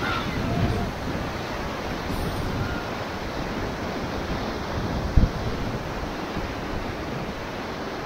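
Whitewater rapids rushing around an inflatable raft, a steady loud wash of water with wind on the microphone. A single low thump about five seconds in.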